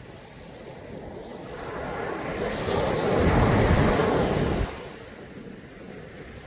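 Caribbean Sea surf on a beach: a wave swells up, washes in loudest about three to four seconds in, then falls away suddenly, leaving a quieter steady wash.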